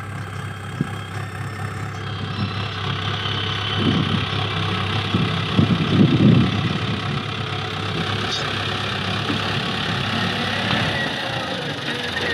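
HMT 7511 tractor's diesel engine running steadily while it pushes soil with a front dozer blade. The engine swells louder briefly about four and six seconds in.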